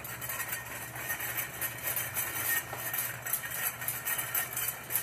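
Loud shopping cart rattling continuously as it is pushed along a store aisle, over a steady low hum.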